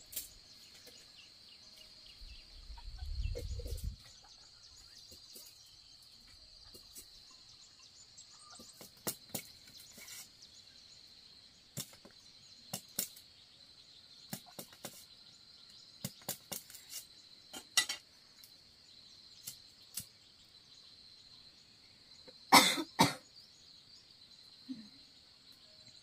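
Knife blade cutting and shaving a wooden stick by hand: scattered sharp clicks of single strokes, with a loud quick cluster of cuts near the end. A steady high insect drone runs underneath, and a brief low rumble comes about three seconds in.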